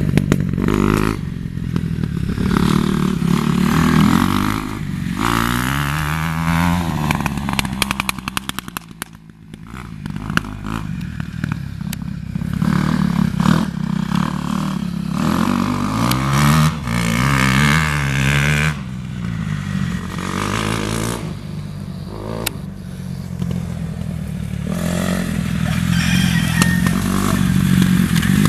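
Kawasaki KX dirt bike engine revving as it is ridden, its pitch climbing and dropping again and again through throttle and gear changes. The engine fades to its quietest about nine seconds in as the bike rides off, then grows louder again as it comes back close.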